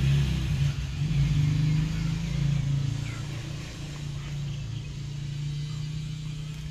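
A low, steady motor-like rumble, louder for the first two or three seconds and then easing off.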